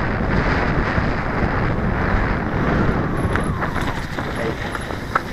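Wind buffeting an action camera's microphone over the rumble of a full-suspension mountain bike rolling down a dirt trail. The noise eases a little near the end, and there is a single sharp click just before it ends.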